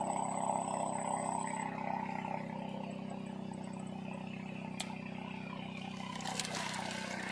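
A boat engine runs at a steady, even hum, with a single sharp click about five seconds in.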